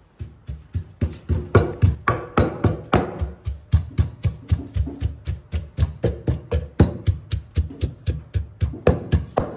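Pestle pounding in a large mortar, an even run of dull knocks at several strokes a second.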